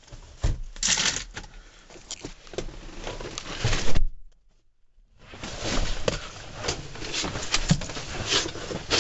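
Rustling, bumping and scattered clicks of a person moving about inside a pickup truck's cab and handling the camera, with no engine running yet; the sound cuts out completely for about a second midway.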